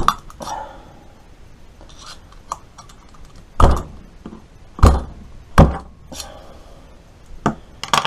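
Sharp metallic clinks and taps of a thin steel T-handle rod knocking inside a small brass fitting of a motorcycle diaphragm fuel pump as it is rammed through to dislodge a blockage, with three louder clinks in the middle among lighter ones.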